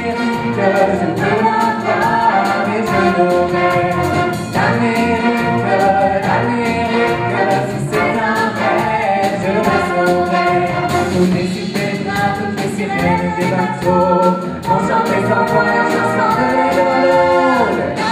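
Wind band playing a song with sung vocals on microphone, over a steady drum beat.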